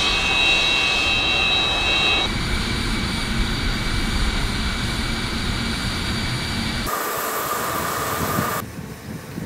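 Antonov An-124's Progress D-18T turbofan engines running, a steady jet roar with a high-pitched whine. The sound shifts abruptly a few times and drops quieter near the end.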